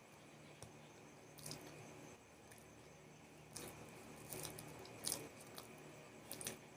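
Faint, close-miked eating: a person chewing fried snacks, with a few short crunches and mouth clicks scattered through, the loudest about five seconds in.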